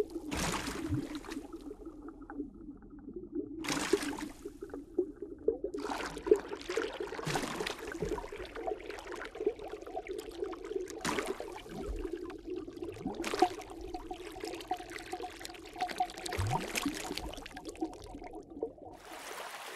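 Aquarium water bubbling and trickling steadily, with splashy swishes of water every second or two.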